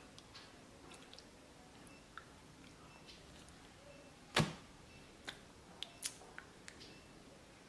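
Quiet room tone with a few short, sharp clicks. The loudest is a single tap about four seconds in, followed by several smaller clicks over the next two seconds.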